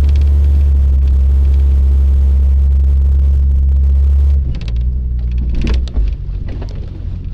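Loud low rumble of a moving vehicle, dropping off sharply about four seconds in, followed by a few short clicks and knocks.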